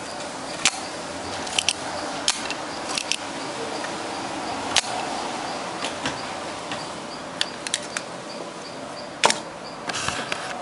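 Scattered sharp clicks and taps of an LED and small parts being handled against an amplifier's circuit board, the loudest just after nine seconds, over a steady background hiss. A faint, regularly repeating high chirp runs underneath.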